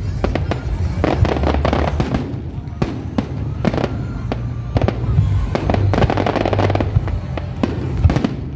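Aerial fireworks display: many shell bursts and dense crackling, with sharp bangs following one another in quick succession over a steady low rumble.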